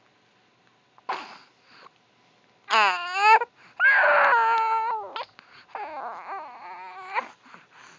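Baby crying out: a short cry about a second in, then loud wavering wails around three to five seconds in, easing into quieter fussing cries.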